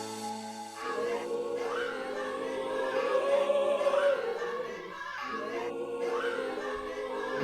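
Music: choir-like sung vocals holding long notes over sustained chords, with no clear words.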